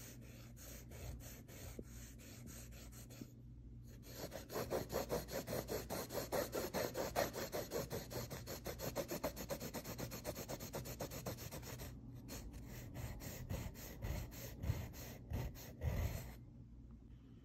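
Pencil shading on a cotton prayer scarf: quick scratchy back-and-forth rubbing strokes of the lead across the fabric, pausing briefly twice and stopping shortly before the end.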